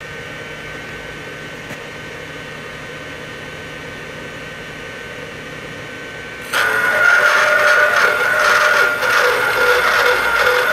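Portable pipe end-prep machine running with a steady high whine, then its cutter biting into the end of 6-inch schedule 80 carbon steel pipe about six and a half seconds in: the sound turns suddenly much louder, a rough grinding cut with clatter, and the motor's whine drops slightly under the load.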